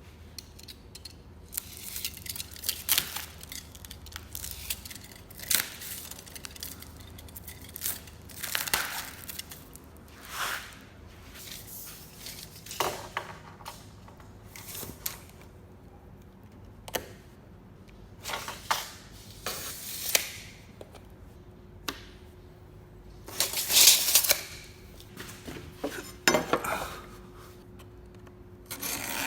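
Irregular knocks, clatter and short scraping sounds of wood and hand tools being handled and worked, with a faint steady hum underneath.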